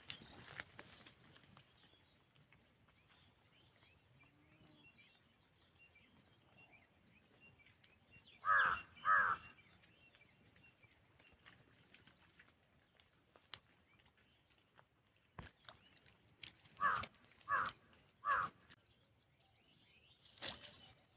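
Crow cawing: two harsh caws in quick succession, then a run of three more caws about eight seconds later, over a quiet outdoor background.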